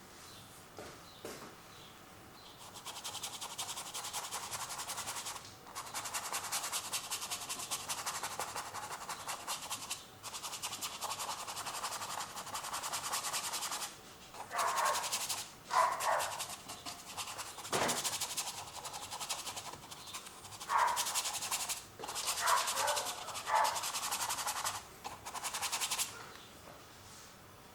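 Acrylic paint being worked onto a canvas in quick, scratchy rubbing strokes, in stretches of a few seconds with short breaks between them.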